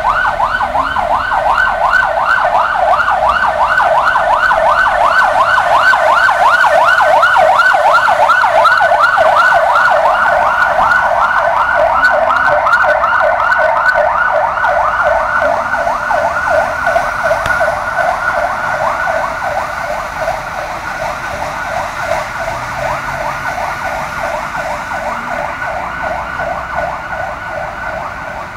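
Emergency vehicle siren on a fast yelp, its pitch sweeping up and down about four or five times a second. It is loud at first and fades gradually over the second half.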